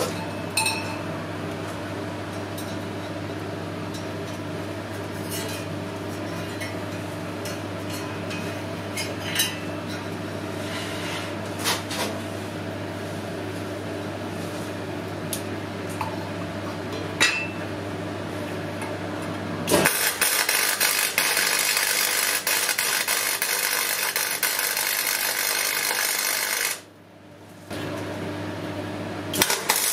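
Microwave-oven transformer cores clinking now and then against the steel box as they are set in, over a steady low hum. About two-thirds of the way in, MIG welding starts suddenly, a loud, steady crackling hiss that breaks off briefly near the end and then resumes.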